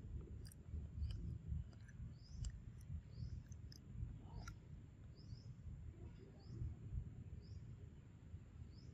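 Small birds chirping: short, high, rising notes repeated about once or twice a second, over a steady low rumble and a few faint clicks.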